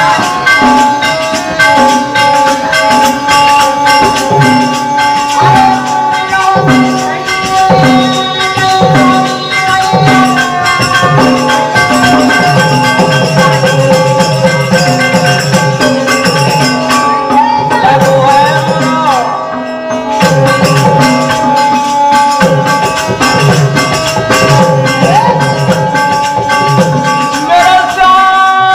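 Instrumental passage of Birha folk music: a harmonium plays a held melody over a steady hand-drum beat, with jingling percussion running through it.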